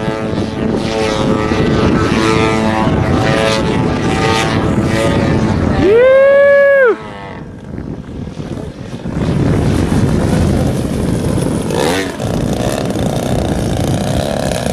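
Propeller-driven RC aerobatic model airplane flying overhead, its motor buzzing steadily, with the pitch drifting as the throttle changes. About six seconds in, a loud tone rises and then falls for a second and cuts off sharply.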